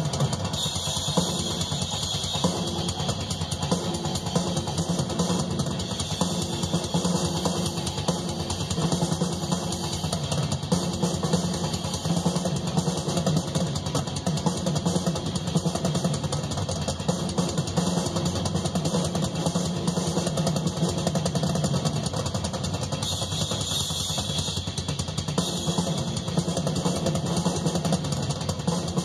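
Live rock drum solo on a full drum kit, bass drum and snare struck in a dense, unbroken run of hits.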